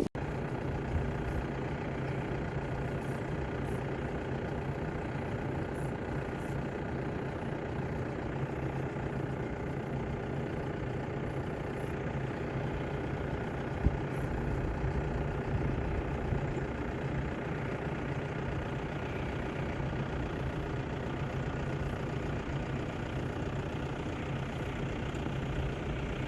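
Heavy diesel engine of silage-harvest machinery running steadily at constant speed, with a single short knock about halfway through.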